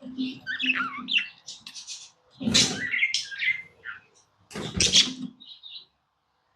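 Pet budgerigars chirping and chattering in a quick, busy warble, with two louder, harsher bursts about two and a half and five seconds in. The sound dies away just before the end.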